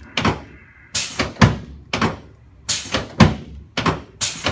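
A rapid, regular series of sharp thumps, about two a second, from chiropractic adjusting on a treatment table.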